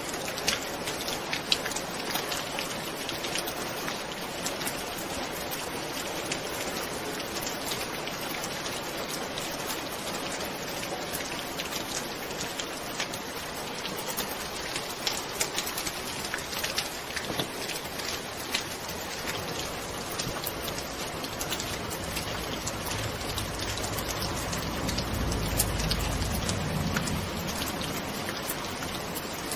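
Steady rain with the sharp ticks of single drops hitting a surface. A low rumble of soft thunder swells and fades about three quarters of the way through.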